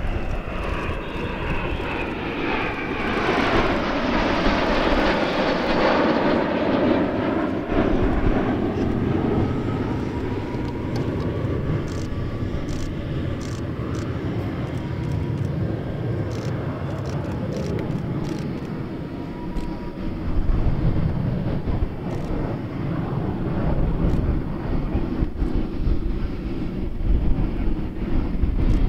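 Jet engine noise from a formation of four BAE Hawk Mk.51A jet trainers, their Adour turbofans' pitch falling over the first several seconds as they pass, then a steadier rumble as they continue the display.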